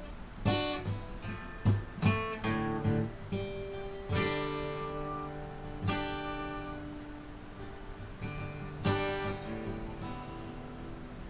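Acoustic guitar playing strummed chords, a handful of strums that ring on between them; the last chord, about nine seconds in, is left to ring and fade.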